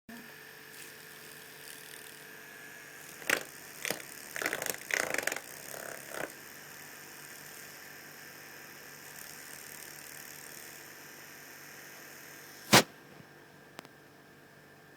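Electric fan humming steadily, with a few knocks and a short rattling clatter about four to five seconds in, then a sharp loud click near the end after which the hum quietens.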